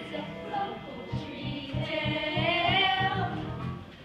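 A chorus of voices singing a show tune over instrumental accompaniment with a steady low beat; the level drops near the end.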